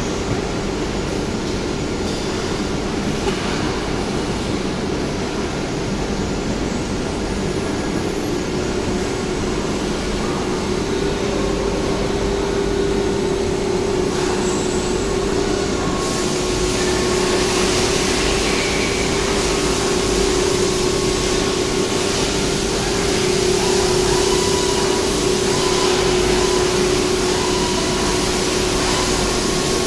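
CNC nesting router cutting a board: a steady spindle whine over the rush of the dust extraction, growing somewhat louder in the second half.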